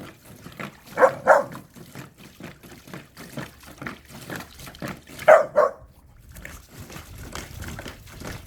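Dogs barking in quick pairs, twice, about a second in and again past the middle, amid the light splashing and scuffling of dogs playing in a kiddie pool.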